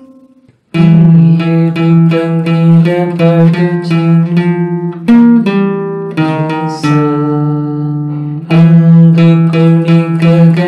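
Nylon-string classical guitar picked with a plectrum, playing a simple single-note melody with many repeated notes at an even pulse. It starts about a second in.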